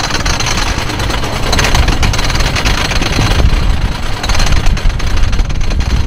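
Wooden roller coaster train climbing the chain lift hill: the lift chain and anti-rollback ratchet clatter rapidly and steadily, with wind noise on the microphone.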